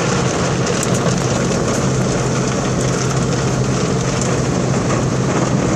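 Automatic tunnel car wash equipment working on the car, heard from inside the cabin: a steady, loud rush with a low hum underneath.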